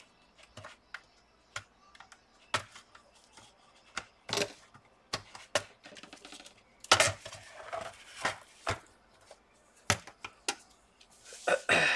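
Plastic snap clips of a Dell Inspiron 15 3580's bottom cover unclipping from the palmrest as the case is pried apart: a series of sharp, irregularly spaced clicks and cracks, some in quick clusters.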